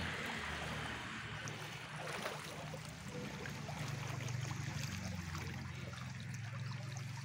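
Floodwater running and trickling as a steady rushing noise, over a low steady hum.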